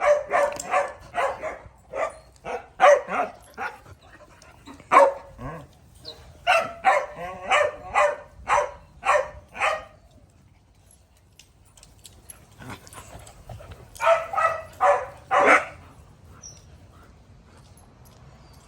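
Small dogs barking in quick, sharp barks, about two a second for some ten seconds, then a pause, then another short burst of about five barks.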